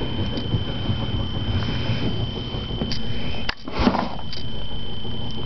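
Rumble of a handheld camera being moved and handled, over a steady high electronic whine. About three and a half seconds in there is a sharp click, then a brief rustle, and the whine drops out for about a second.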